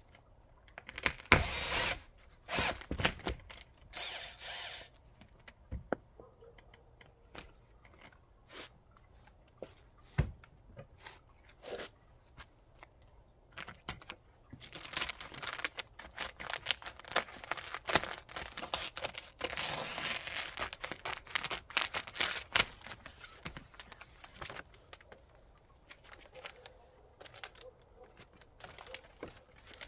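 Hands at work fitting a stove flue pipe: irregular rustling, scraping and knocks from material and tools being handled. There is a flurry in the first few seconds and a denser run of scraping and crinkling from about halfway until near the end.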